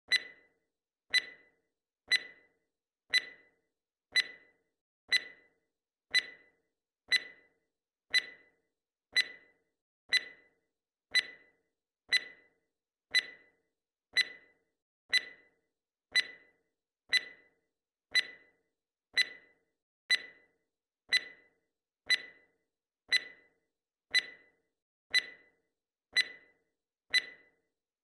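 Timer tick sound effect: one short, sharp tick every second, each marking one second of the count.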